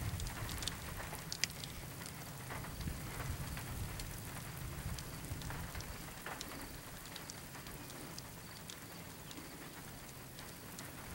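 Light rain: scattered raindrops ticking irregularly over a faint, steady low background noise.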